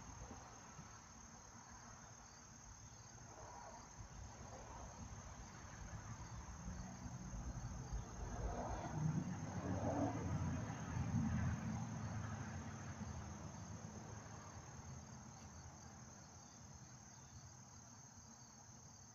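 Crickets chirping in a steady high trill. A low rumble swells in the middle and fades again.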